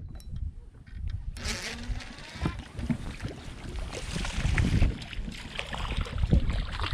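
Wind gusting on the microphone and water lapping against a fishing boat, with scattered knocks and clicks of handling.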